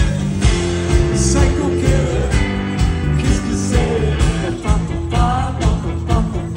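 Live rock band playing with a steady drum beat and a moving bass line, with a voice singing briefly about five seconds in.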